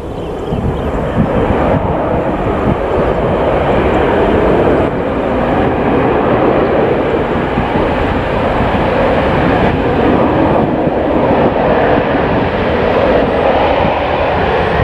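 A Boeing 737-900ER's CFM56 jet engines running loud during a landing on a wet runway: a steady noise that builds over the first couple of seconds and then holds.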